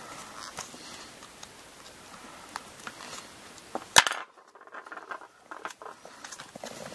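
Small scratching and ticking of a metal awl and fingertips working the leftover front-thong (maezubo) cord into the groove on the underside of a zori sole, with one sharp click about four seconds in.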